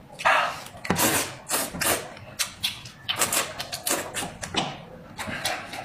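Braised sheep-head meat being torn apart by hand and eaten: an irregular run of short wet smacks and squelches.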